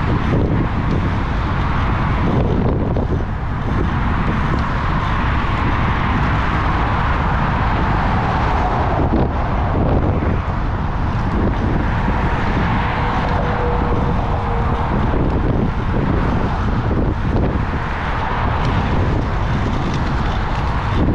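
Steady wind noise buffeting the microphone of a GoPro mounted by a moving bicycle's front wheel, over a continuous low rumble of the ride along the road.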